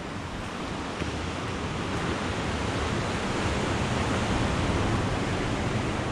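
Sea surf and wind: a steady rush of noise with a deep rumble, swelling louder toward the middle and later part.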